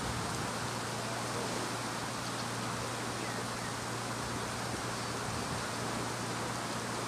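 Steady, even hiss like rain, with a constant low hum underneath.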